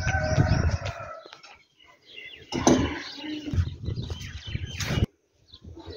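Small birds chirping: a burst of many overlapping short chirps in about the first second. The sound then cuts out abruptly twice, with indistinct mixed sound between the cuts.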